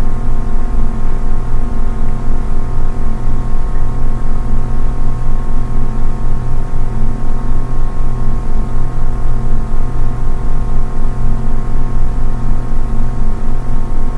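Background music: a sustained drone of steady held tones with a quick, even pulse, about four beats a second.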